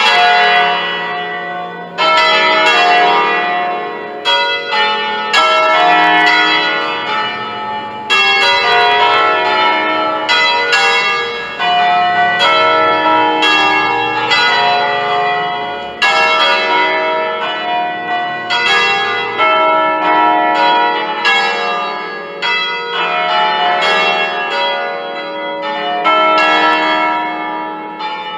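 A ring of five bronze church bells, cast by Pruneri in 1887 and tuned to a slightly flat E, swinging by hand in a full peal. Their strokes come thick and overlapping, each ringing on and fading under the next.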